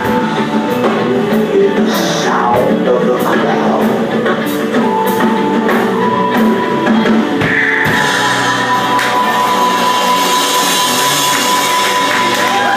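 Live rock band playing loud, with drums, electric guitar and some singing. About two-thirds of the way through, the regular drum hits give way to a steady wash of cymbals under a long held high note.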